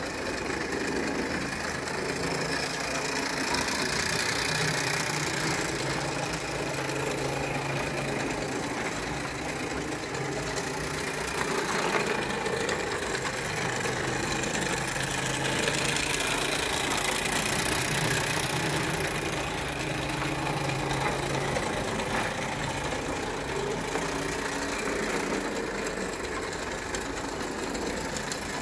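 An Ernst Plank 'Vulkan' live-steam toy locomotive from about 1890, with a single oscillating cylinder geared to the rear axle, running steadily round a tinplate track. It makes a continuous hissing clatter of steam, gears and wheels that swells and eases slowly.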